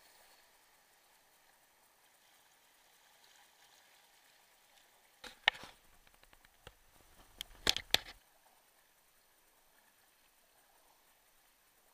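Kayak paddling close to the camera: a cluster of sharp knocks and splashes about five to eight seconds in, over a faint wash of moving water.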